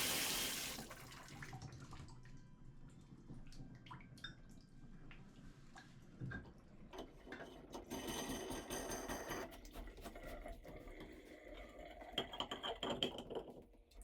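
Water running from a Kohler Trend bathtub faucet is shut off about a second in, while the new stem is tested. After that come quieter drips and small scattered clicks.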